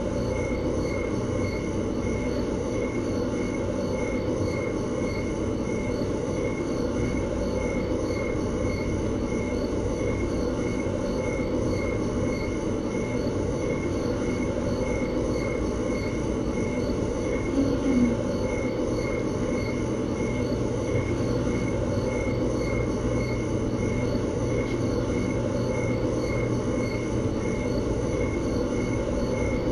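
Steady low hum and rush of background noise, with a faint high chirp-like tone pulsing about every half second; a brief low pitched sound stands out once, about eighteen seconds in.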